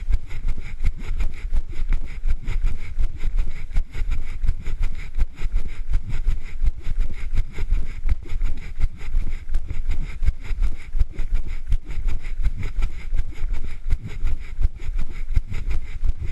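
A runner's footfalls jolting a body-worn camera: regular knocks about three times a second over a low wind rumble on the microphone.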